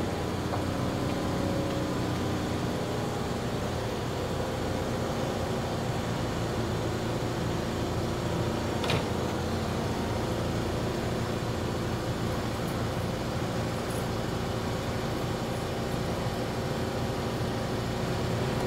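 Electric train at a rail depot, humming steadily with several held electrical tones over a broad rumble. A single sharp click comes about nine seconds in.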